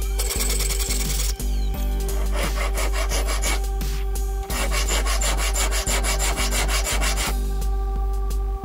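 Rapid rasping strokes of a jeweler's saw and hand file working a small piece of silver sheet against a wooden bench pin, pausing briefly about four seconds in and again near the end.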